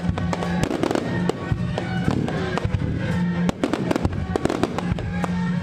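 Aerial fireworks going off in rapid, irregular bangs and crackles over steady music.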